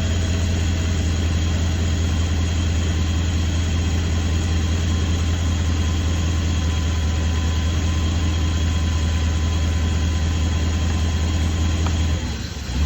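BMW E32 engine idling roughly, the rough idle that makes the car shimmy, as a steady low hum. Near the end the hum drops and turns uneven.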